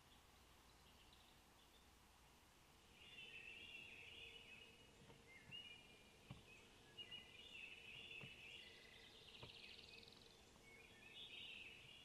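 Faint woodland songbirds chirping and trilling, starting about three seconds in, with a few soft knocks.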